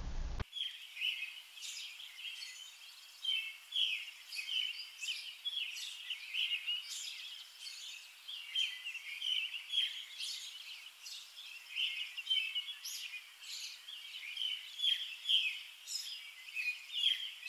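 Small birds chirping and singing together in a busy chorus of short, high calls, many overlapping.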